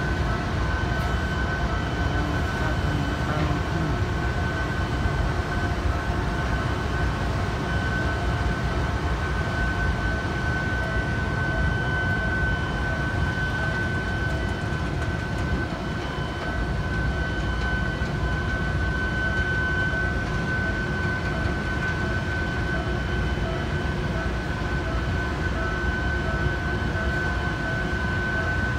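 Giant shipyard gantry crane running as it carries a steel ship hull block: a steady mechanical drone with a constant high-pitched whine over it.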